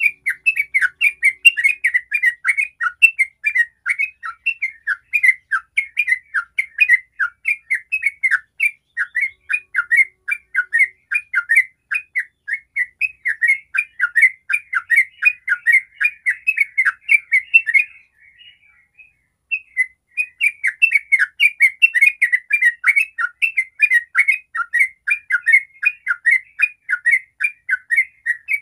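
Yellow-vented bulbul singing a long, rapid run of short chattering, bubbling notes, the fast continuous 'ropel' song that keepers use to get other bulbuls singing. It pauses briefly about 18 seconds in, then goes on.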